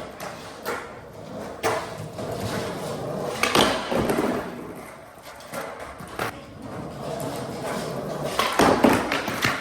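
Skateboard wheels rolling on a portable skate ramp, broken by several sharp clacks of the board and trucks striking the ramp's round coping rail, with a loud cluster of hits near the end.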